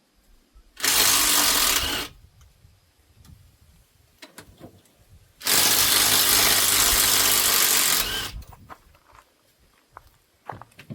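Impact wrench run in two bursts on a bolt of a big-block Chevy engine being torn down, a short one about a second in and a longer one of a few seconds mid-way, with small tool clicks between.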